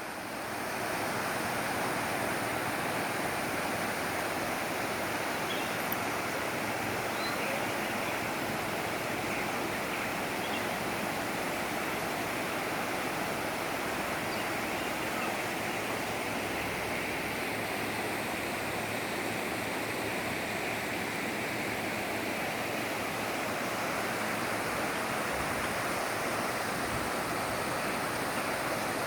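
Waterfall: water falling and splashing in a steady, continuous rush.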